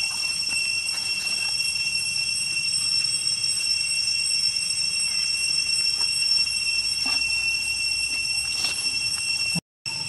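Cicadas buzzing steadily in a high, shrill drone of several unbroken tones, with a few faint scuffs and clicks over it. The sound cuts out for an instant near the end.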